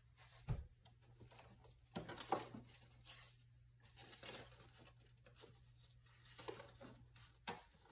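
Faint handling noises of paper craft pieces: light rustles, taps and small clicks at irregular moments, over a low steady hum that stops about seven and a half seconds in.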